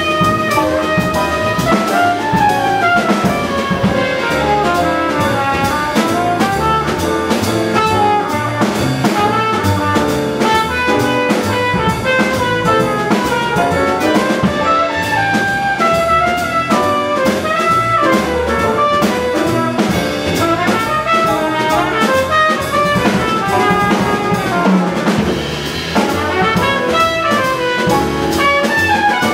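A live jazz combo playing: trumpet carrying the melody over grand piano, upright bass and drum kit with busy cymbals.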